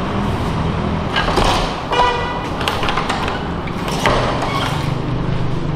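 Garage door being pushed open: scraping and knocking, with a short high squeal about two seconds in, over a steady low hum.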